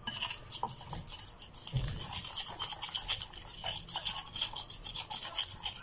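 Metal fork stirring a thick flour-and-egg batter in a ceramic bowl, clicking and scraping against the bowl in quick repeated strokes.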